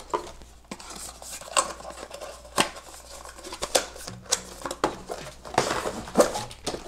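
Cardboard box packaging handled by hands: the lid and card inserts tapping and scraping, with scattered light clicks and knocks about once a second and a short rustle of card near the end.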